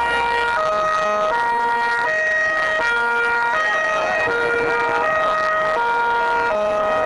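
Two-tone sirens of Carabinieri escort cars, alternating between a high and a low note about every two-thirds of a second.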